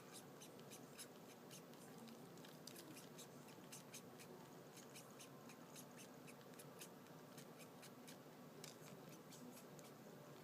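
Cat licking another cat's fur: faint, irregular soft clicks from the tongue, a few a second, over a quiet hiss.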